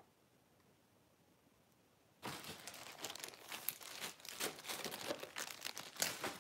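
Bags holding paint crinkling and rustling as they are handled and rummaged through, starting about two seconds in, with many small sharp crackles.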